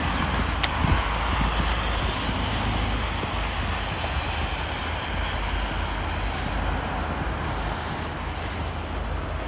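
Steady outdoor background noise with wind rumbling and buffeting on the microphone, and a few faint clicks in the first couple of seconds.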